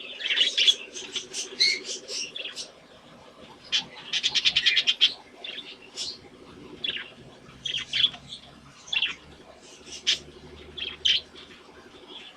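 Budgies chirping and warbling: short sharp chirps come every second or so over a soft continuous chatter. About four seconds in there is a rapid rattling trill of about ten notes a second.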